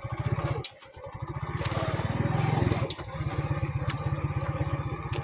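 Motorcycle engine running with a steady low putter as it rides a dirt track. It drops away briefly just before a second in, then picks up again and swells to its loudest around two and a half seconds in.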